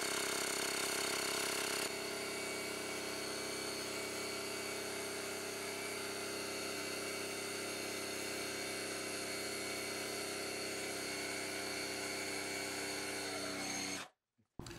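Shop air hose blowing compressed air over an 8-inch woofer cone to clear off scraped foam-surround residue, a steady hiss over a steady mechanical hum. It is louder for the first two seconds, then carries on evenly and cuts off abruptly near the end.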